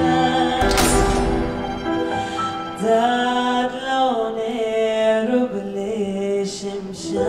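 Music with a singing voice over long held notes, with a sharp crash-like hit about a second in.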